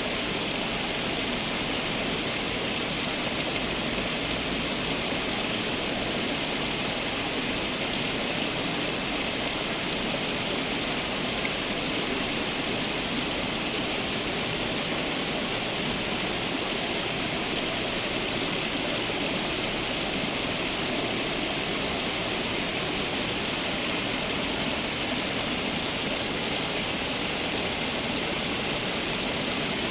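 Water from a garden fountain falling and splashing in a steady, unbroken rush.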